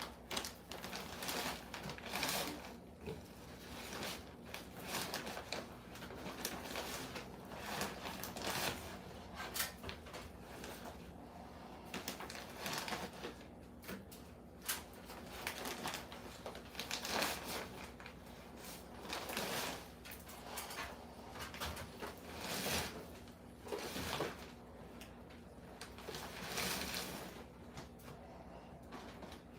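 Repeated irregular scraping and rubbing strokes, several every few seconds, over a steady low hum.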